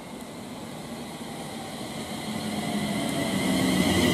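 London Northwestern Class 350 Desiro electric multiple unit approaching on the platform line, growing steadily louder. High steady whining tones and a lower hum build up as it draws alongside near the end.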